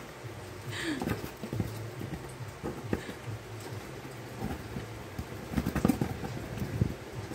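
Irregular soft knocks and taps on a cardboard box as a kitten paws at a small object poking through the box wall, with a quick cluster of louder taps late on.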